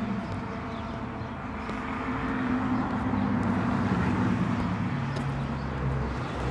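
A motor vehicle going by: a low engine hum with road noise that swells to a peak about three to four seconds in and then eases off.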